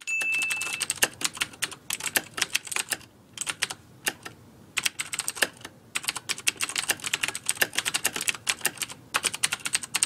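Typing sound effect: rapid, irregular key clicks with a few short pauses, keeping pace with on-screen text being typed out. A brief high tone sounds at the very start.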